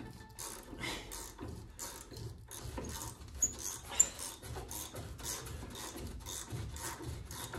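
Rusted, seized sway bar end-link bolt squeaking and grating as it is turned out with a wrench, in quick repeated strokes about three a second with a couple of sharp squeaks near the middle. The bolt is turning so stiffly that it heats up enough to make the penetrating oil smoke.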